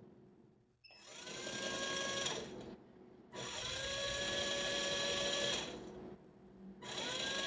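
Electric motor of a watch cleaning machine spinning the basket of parts in a cleaning cycle, whining up to speed and stopping in three spells of about one and a half to two seconds each, with short pauses between.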